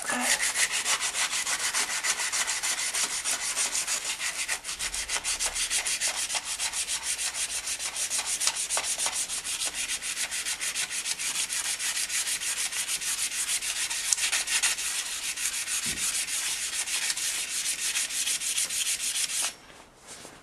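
Rapid back-and-forth hand rubbing of an abrasive on a metal motorcycle exhaust downpipe, roughly four strokes a second, to clean off burnt-on deposits. It stops abruptly near the end.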